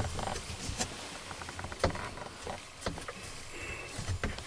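Faint rustling and scattered small clicks and taps: hunters shifting and handling their gear as they get ready to shoot.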